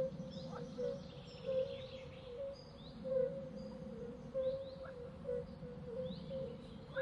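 Birdsong ambience: assorted birds chirping with short high calls, while a low note repeats about once a second over a faint steady background hiss.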